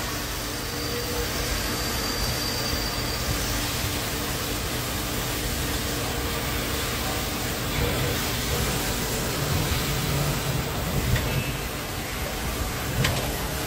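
Makino A-55 CNC horizontal machining center running: a steady mechanical hum with several held tones and hiss. The low drone grows stronger about eight seconds in as the table moves away from the spindle, and there are a couple of sharp clicks near the end.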